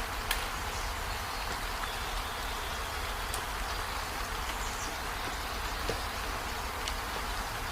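Steady rain, an even hiss with a few faint ticks and a low rumble underneath.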